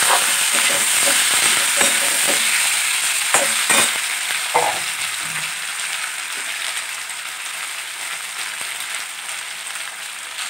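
Boiled potato chunks and tomato pieces frying in mustard oil in a kadai, sizzling steadily, while a metal spatula scrapes and knocks against the pan in the first few seconds. The sizzle gets quieter toward the end.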